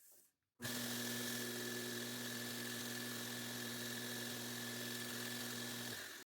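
A power tool's electric motor running steadily, with a hum and a strong hiss over it. It starts suddenly about half a second in and cuts off just before the end.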